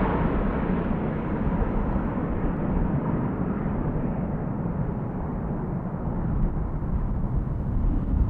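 Jet airliner engine noise rumbling as the aircraft moves away, the hiss dulling steadily while the low rumble stays.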